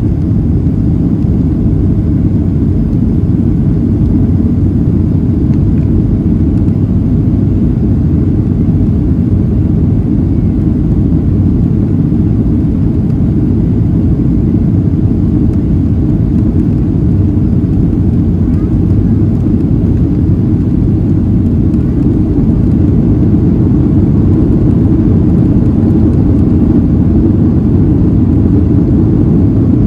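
Cabin noise of a Boeing 737-700 in its initial climb after liftoff. Its CFM56-7B jet engines run at takeoff thrust, heard inside the cabin as a loud, steady low rumble.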